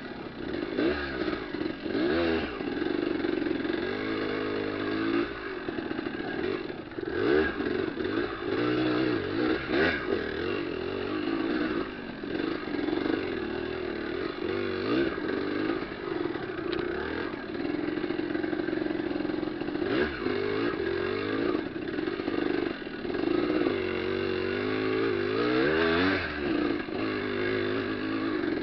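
Off-road motorcycle engine running over a trail, its pitch rising and falling over and over as the throttle is opened and closed, with some clattering.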